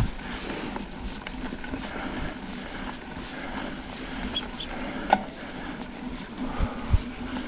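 Mountain bike being ridden along a dirt trail: steady tyre and drivetrain noise with the frame rattling over the ground. There is a sharp click about five seconds in and two low thumps near the end as the bike hits bumps.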